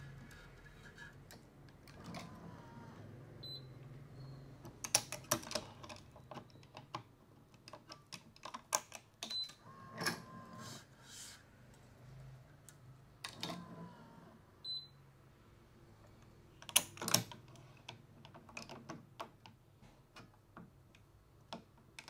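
Badminton racket string being woven by hand through the cross strings: irregular clicks and taps, with a few short squeaky rubs of string drawn through the string bed.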